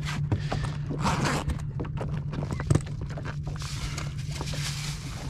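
Dolphins surfacing and blowing: short breathy puffs, the strongest about a second in and again near the end. A steady low hum and scattered knocks run underneath.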